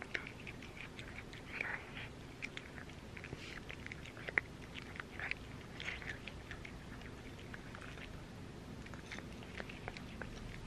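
Cat eating from a glass bowl: faint, irregular chewing with many small clicks, the sharpest one a little past the middle.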